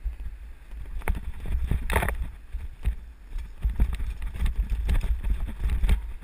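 Bicycle jolting down a flight of steps: a rapid run of knocks and rattles with each step over a low rumble on the camera, with a brief louder rasp about two seconds in.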